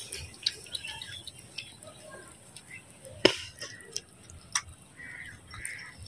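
Two cats eating wet food from steel bowls: small wet chewing and licking clicks, with one sharp click a little past halfway.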